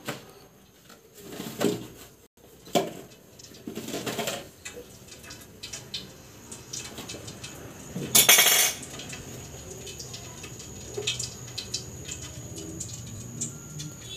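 Intermittent kitchen clatter of dishes and utensils: scattered knocks and clinks, with one louder clattering burst about eight seconds in.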